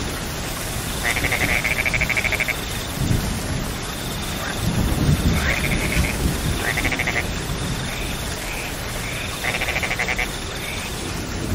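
Steady rain falling, with frogs calling over it in rapid buzzing trills, about half a dozen calls of a second or so each. A low rumble comes through about three and again about five seconds in.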